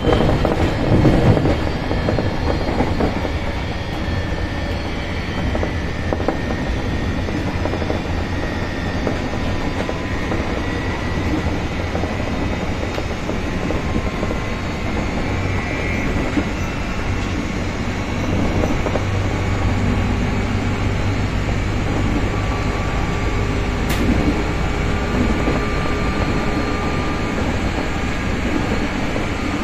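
Interior running noise of a JR 203 series electric multiple unit motor car at speed: a steady rumble of wheels on rail with faint high tones over it.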